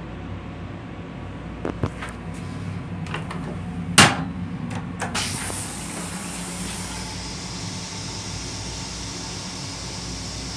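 Train-toilet seat clattering up once, then about a second later the toilet flushes with a loud spraying hiss that eases after about two seconds to a quieter steady hiss. Under it the steady rumble and hum of the M7 railcar.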